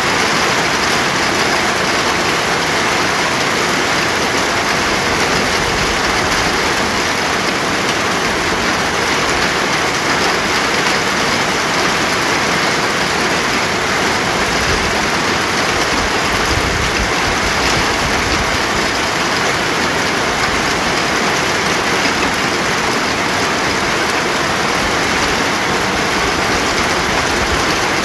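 Steady heavy rain falling, a dense continuous hiss with no breaks or changes.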